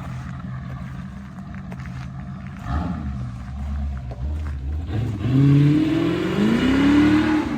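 A 1989 Chevrolet Corvette C4's 5.7-litre V8 runs with a low rumble, then the car accelerates away, its engine pitch climbing twice in the last couple of seconds and getting louder.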